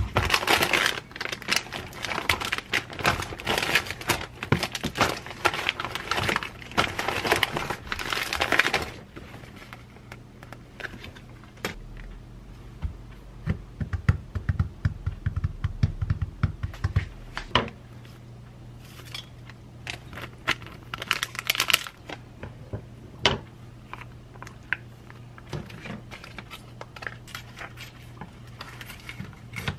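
Plastic vacuum-sealed food packs crinkling as they are lifted out of a plastic tray for the first nine seconds. Then hands tapping a soft rhythm on a wooden cutting board for a few seconds, followed by scattered crinkles and the snip of kitchen scissors cutting into a vacuum-sealed pack of beef near the end.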